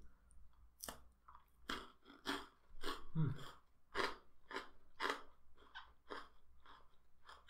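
Chewing a mouthful of Cadbury's Crunchie's honeycomb centre under milk chocolate: crisp, sharp crunches about twice a second, starting about a second in.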